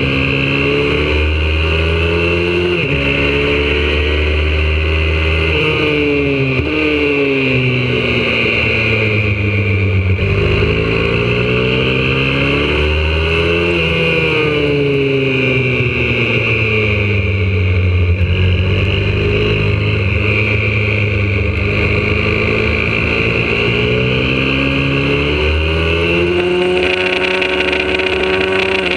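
YCF 125cc four-stroke pit bike engine at race pace on track. The revs climb and drop back at each upshift in the first few seconds. They fall away over a long stretch in the middle as it slows for corners, then climb again near the end.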